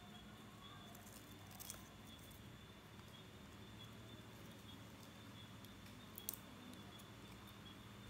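Near silence over a faint steady hum, with a few soft clicks and rustles from hands handling a small wooden-stick model bench and coloured wire. The sharpest click comes about six seconds in.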